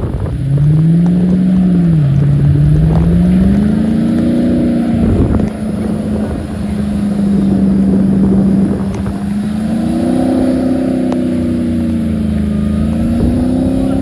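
A vehicle engine pulling hard under load while one vehicle tows another out of snow on a recovery strap. Its pitch rises and falls as the throttle is worked, with a short drop about five seconds in.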